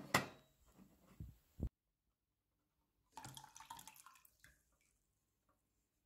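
A single knock as the drip tray of a Nespresso coffee machine is handled, then faint drips and a short trickle of leftover descaling fluid poured from the drip tray into a plastic tub.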